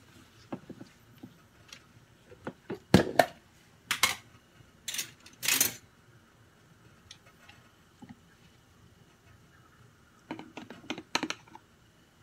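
Sharp plastic clacks and knocks from a yogurt tub and its lid being handled on a kitchen counter, with several loud knocks in the first half and a quick run of clicks near the end.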